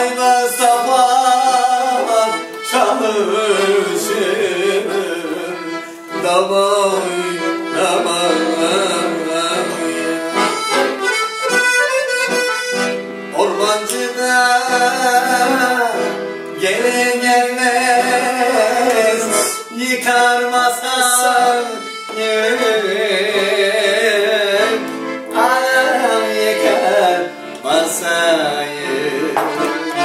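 Piano accordion playing a lively, ornamented Turkish folk melody with chords, solo and without singing.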